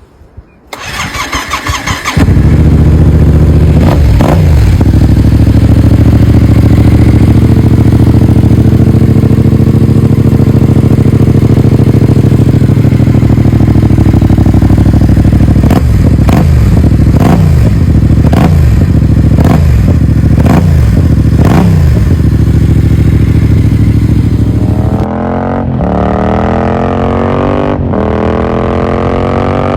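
Yamaha MT-07's parallel-twin engine with an Akrapovic exhaust starting up about a second in, then idling with a throttle blip and, in the middle, a run of about six quick revs. Near the end the note climbs steadily in pitch as the bike accelerates, dipping once at a gear change.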